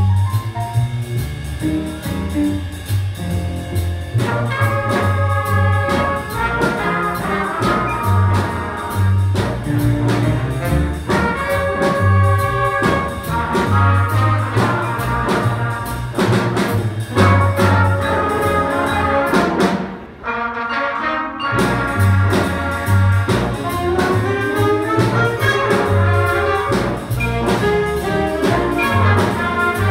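Jazz big band playing: saxophones, trumpets and trombones over upright bass and drums, with a short break in the ensemble about two-thirds of the way through before the band comes back in.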